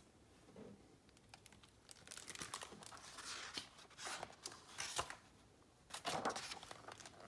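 Hardcover picture book in a glossy plastic library jacket being opened and its pages turned: soft rustling and crinkling in several short spells, with a few light taps of the cover.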